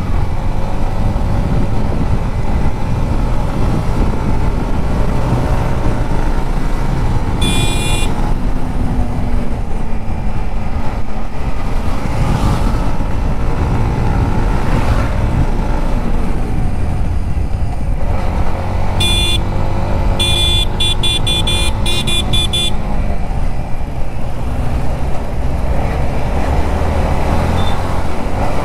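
Yamaha MT-15 motorcycle engine running under way with heavy wind rush, its pitch rising and falling with the throttle. A horn sounds once about eight seconds in, then again in a quick string of short beeps around twenty seconds in.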